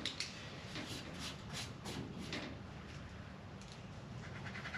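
Faint scratching and rustling: a quick run of short strokes in the first couple of seconds, quieter after that.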